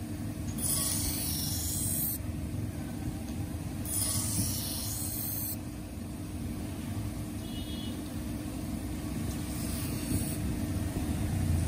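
Large grinding wheel running with a steady motor hum, while a steel surgical scissor blade is pressed against it in short spells, each a high grinding hiss of a second or two, three times with the last near the end.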